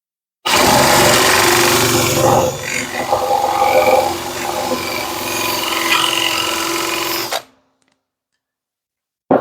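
Power drill turning a large Forstner bit as it bores into a wooden board. It starts about half a second in, runs steadily with the sound shifting as the bit bites deeper, and stops abruptly, followed near the end by a single short knock.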